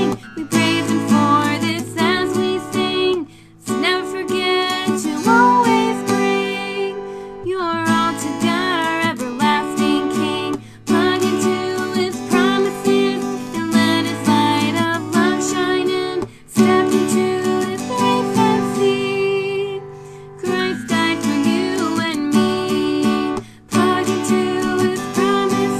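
Song accompanied by a strummed acoustic guitar in a steady rhythm, with a woman's singing voice over it at times.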